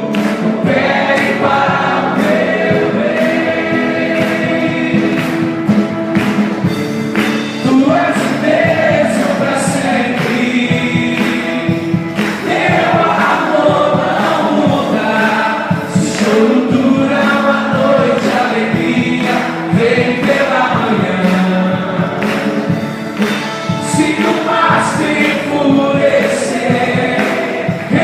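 Church worship music: a group of voices singing a gospel song over instrumental accompaniment.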